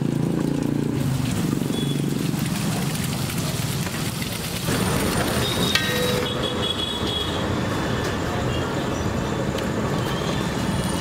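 Busy street ambience: steady traffic noise with indistinct background voices. The sound bed changes abruptly about five seconds in, and short high tones come and go after that.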